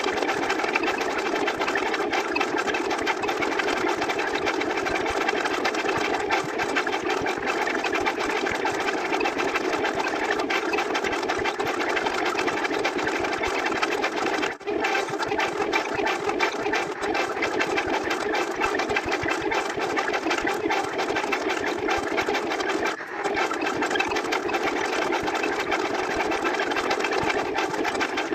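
A loud, continuous buzzing whir, like a fast-running machine, with two brief drop-outs about 15 and 23 seconds in.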